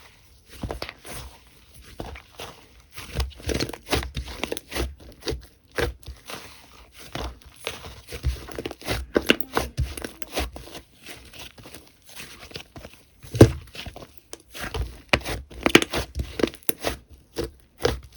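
Slime being squeezed, pressed and stretched by hand, giving a string of irregular sticky pops, clicks and crackles, with one sharp loud pop about halfway through.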